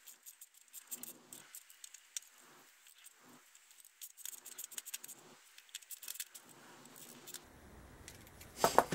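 Small metal clicks and clinks from a Suzuki Hayabusa ignition switch and top yoke being handled as the switch is worked back into the yoke. The clicks come thick at first, thin out about six seconds in, and a louder knock comes near the end.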